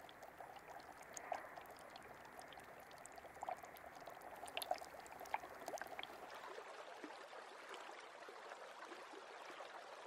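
Faint, steady trickle of shallow water flowing through a winter water meadow, with a few soft, short ticks scattered over it.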